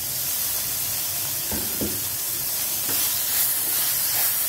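Shallots, tomato and herbs frying in oil in a non-stick pan, a steady sizzling hiss, with a few soft knocks of a wooden spatula stirring them.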